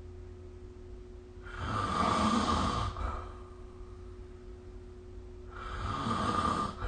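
A person snoring: two snores about four seconds apart, each lasting a little over a second, over a faint steady hum.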